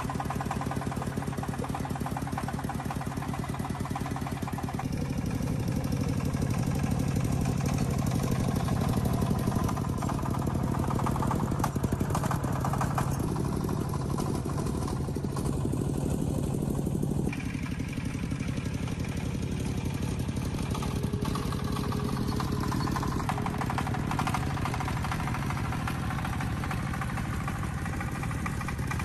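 Diesel engine running with a rapid, even chugging. It gets louder about five seconds in and changes tone again around seventeen seconds.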